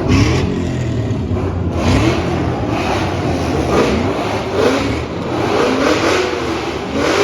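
Supercharged Ford Mustang engine being revved in repeated quick blips, about one a second, each rise in pitch dropping back toward idle.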